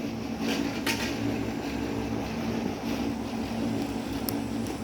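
Steady low machine hum, with a couple of faint clicks about a second in.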